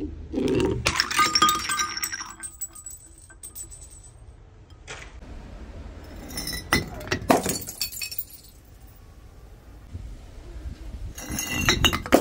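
Glass bottles tumbling down concrete steps and smashing, with clinking and breaking glass in three bouts: about half a second in, around seven seconds, and again near the end.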